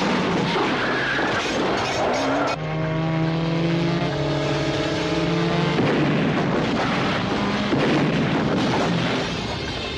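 Action-film soundtrack of car sounds: engine noise and tyre skidding, with a steady pitched tone held for about three seconds in the middle.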